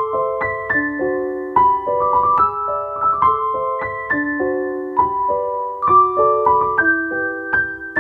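Background instrumental music: a melody of struck notes that ring on, a few to the second.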